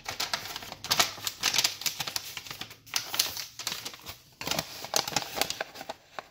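Paper packing slip rustling and crinkling as it is unfolded and handled: a run of irregular crisp clicks and rustles.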